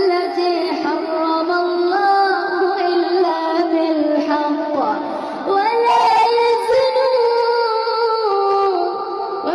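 Background music: a melodic voice singing long held notes that slide smoothly in pitch.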